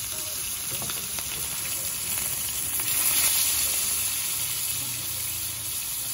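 Fish (dalagang bukid) frying in hot oil in a pan: a steady sizzle with scattered crackles and pops, swelling louder around the middle.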